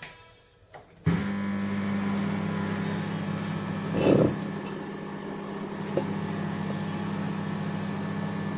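Dial-controlled microwave oven starting up about a second in and running at full power with a steady low hum. A brief louder bump comes about four seconds in.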